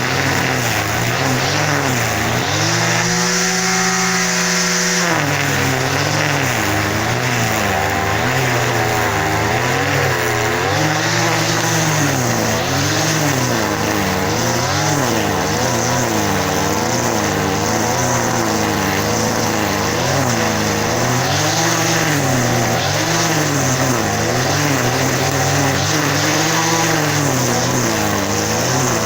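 An engine running and being revved, its pitch swinging up and down every second or two, held steady for a couple of seconds near the start.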